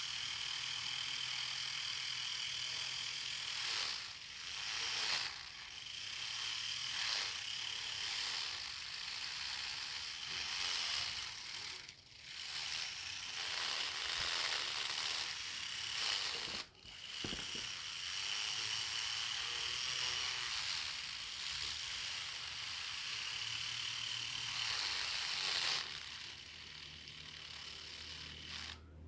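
Small electric motor and gears of a homemade RC truck drivetrain running with a steady rattling whir, briefly dropping off a few times and getting quieter near the end.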